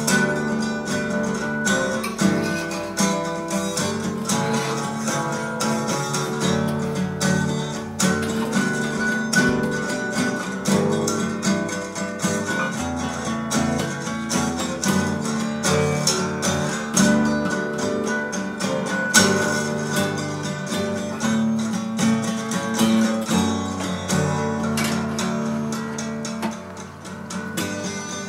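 Background music played on guitar, a continuous run of plucked notes at an even level.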